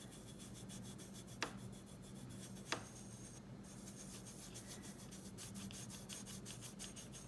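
Fingertips rubbing mica powder over a silkscreen onto polymer clay, working the powder down through the screen's holes: a faint, steady dry rubbing, with two light clicks at about a second and a half and just under three seconds in.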